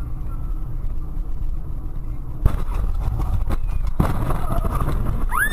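Car collision heard from inside the vehicle: steady road rumble, then a sudden loud crash about two and a half seconds in, a few knocks, and a second hit at four seconds as the car ploughs into a roadside hedge, with branches scraping against the body.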